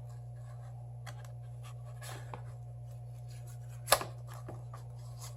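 Faint scraping and ticking of a thin pry tool working along the edge of a Galaxy S7 Edge's glued-down back glass, with one sharp click about four seconds in, over a steady low hum.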